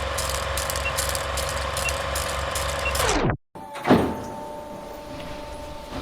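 Foley sound effects: a steady mechanical hum with a regular ticking that winds down sharply in pitch and cuts off a little past three seconds in, followed by a single thump and then a quieter steady hum.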